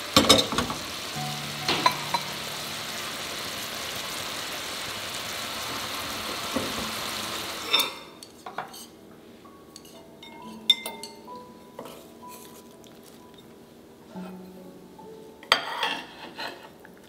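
Tofu in sauce sizzling steadily in a pan, with a few clinks of a utensil against it; about eight seconds in the sizzle stops and chopsticks tap and clink against ceramic bowls and plates. Soft background music with held notes runs underneath.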